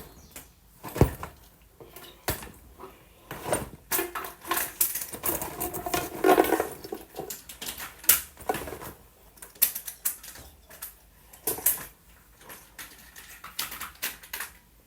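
Plastic fidget toys being handled and packed into a bag: an irregular run of small clicks, knocks and clatters, with a brief stretch of rustling about six seconds in.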